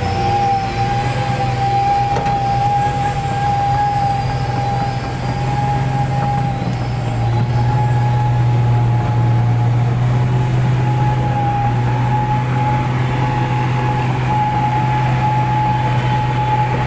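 Heavy diesel engines working under load as an excavator pushes a Hino 500 dump truck that is struggling for grip in slippery red clay. A loud, steady engine drone with a steady whine over it, swelling a little past the middle.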